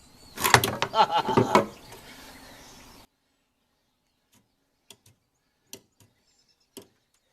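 Metal clanking and knocking for about a second as the snowblower gearbox is worked on its shaft, then a few faint clicks.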